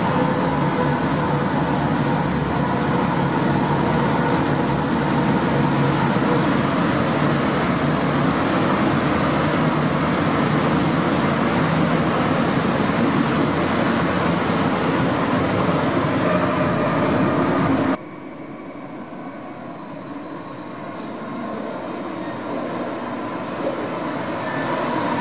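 Stuttgart S-Bahn electric multiple unit pulling into and standing at an underground station platform: a steady loud rumble and hum. About three-quarters of the way through the sound cuts off abruptly to much quieter station noise, then a low rumble builds steadily as the next S-Bahn train approaches.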